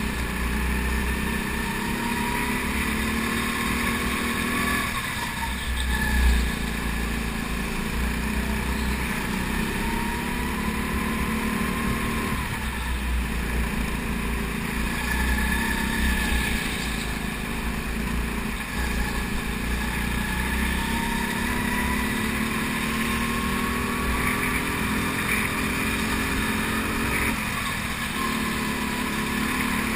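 Go-kart engine heard onboard at racing speed, its pitch climbing along each straight and dropping away as the driver lifts off for the corners, about every five to six seconds. A brief louder knock about six seconds in.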